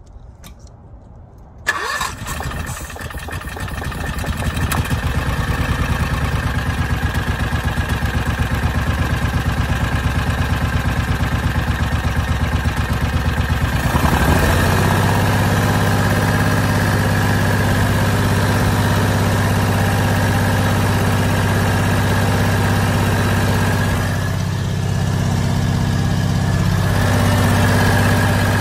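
Predator 670 V-twin engine starting about two seconds in and then running steadily; its tone shifts about halfway through and dips briefly near the end.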